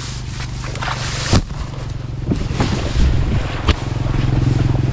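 A small engine running steadily, its hum getting louder about four seconds in, over rustling and sharp snaps of tall grass and plants being pushed through on foot.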